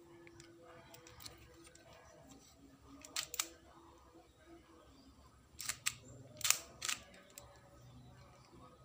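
Sharp plastic clacks from a LEGO-brick Colt 1911 pistol model as its mechanism is worked by hand: a quick pair about three seconds in, then four more over the next few seconds.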